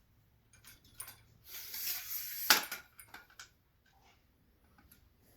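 Telescope tripod parts being handled and taken apart: a few light clicks, a short rustling scrape, then a sharp click about two and a half seconds in, followed by a few lighter clinks.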